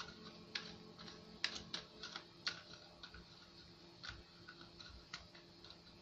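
Plastic screw cap being turned on a large plastic bottle: a series of irregular sharp plastic clicks, the loudest about a second and a half and two and a half seconds in, over a faint steady hum.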